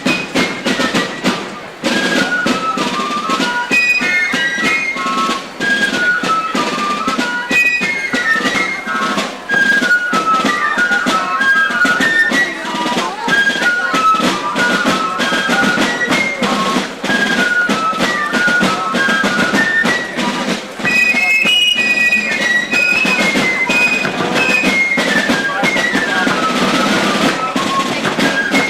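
Fife and drum corps playing a march: a fife melody running up and down over steady drumbeats.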